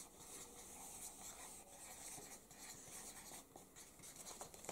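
Faint scratching of markers writing on paper.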